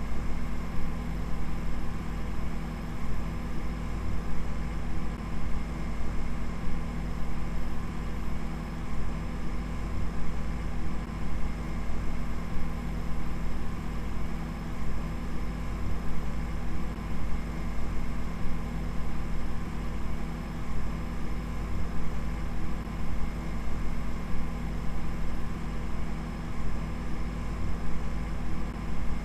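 A steady low hum with several fixed tones over a constant hiss, its level fluttering rapidly without ever stopping.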